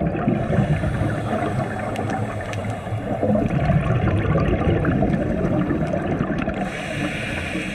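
Scuba diver's exhaled bubbles rushing and gurgling from the regulator, heard underwater through the camera housing, with a brief hiss near the end.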